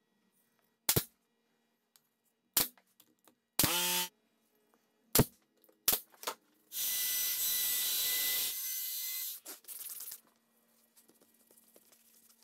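Woodworking-shop sounds cut together: a few sharp knocks, a short pitched squeak about four seconds in, then a loud stretch of steady hissing noise and a shorter, softer one later, ending in faint ticking.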